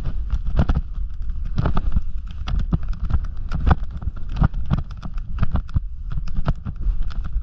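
Snowboard riding through chopped-up powder: the board scrapes and knocks over the bumps in an irregular run of thumps and clicks, over a steady low rumble of wind on the camera's microphone.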